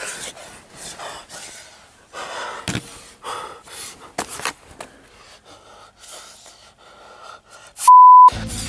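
A man panting and gasping for breath in short, heavy bursts, with a few sharp clicks among them. Near the end comes a single loud, high steady beep lasting about half a second.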